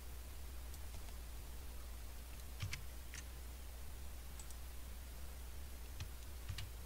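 Faint, scattered clicks from a computer mouse and keyboard, a few at a time, over a steady low hum.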